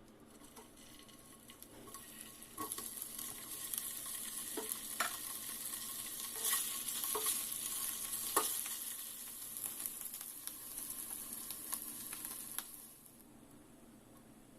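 Food sizzling in a hot pan while a spatula stirs and scrapes it, with sharp taps of the spatula against the pan. The sizzle builds about two seconds in and drops away suddenly near the end.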